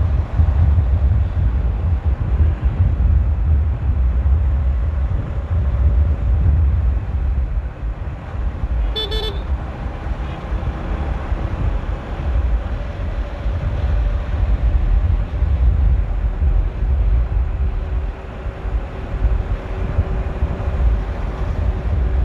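Motorcycle riding on the road, its engine under a heavy, continuous low rumble of wind buffeting the microphone. A vehicle horn gives one short beep about nine seconds in.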